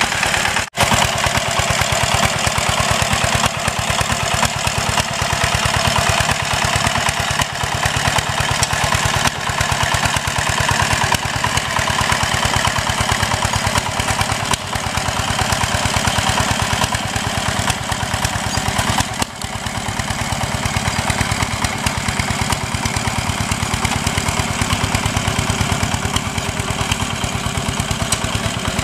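Single-cylinder diesel engine of a walk-behind hand tractor running steadily under load as it pulls a plough through wet paddy mud, with a fast, even chugging beat. The sound cuts out for an instant just under a second in.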